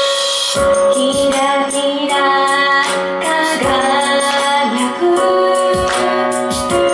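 Upbeat pop song with a steady drum beat and bright high percussion, a woman singing over it.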